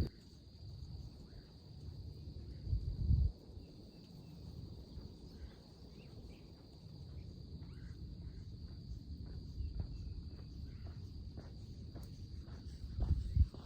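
Insects trilling in a steady, high-pitched chorus over a low rumble, with faint soft steps along the trail.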